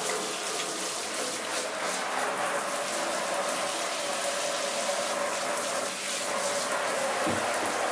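Handheld shower head spraying water onto a plastic hamster cage base, a steady hiss of running water splashing on the plastic, with a brief low knock near the end.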